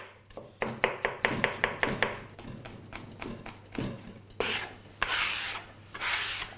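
Chef's knife chopping onion and green chili on a plastic cutting board: a quick run of sharp strokes, then scattered lighter taps. Near the end come three rasping scrapes as the chopped pieces are swept across the board into a steel bowl.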